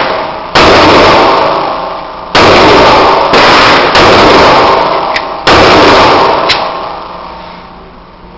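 Five pistol shots from a Glock 19 9mm, unevenly spaced over about five seconds, each loud crack trailing off in a long echoing decay. After the last shot, about five and a half seconds in, the sound fades away.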